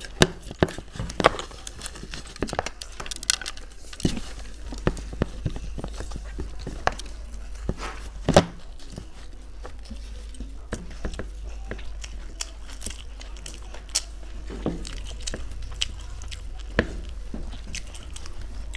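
Masala muri (spiced puffed rice) being chewed and crunched close to the microphone, with irregular crisp crackles and clicks throughout; the loudest click comes about eight seconds in.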